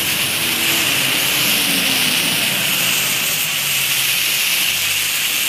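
Firework fountains, a giant flower pot (anar) and a silver-falls pencil, burning side by side with a steady, loud rushing hiss as they spray sparks.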